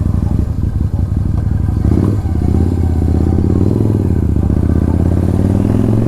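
Motorcycle engine under way, with a brief dip about two seconds in, then its pitch climbing steadily as the bike accelerates.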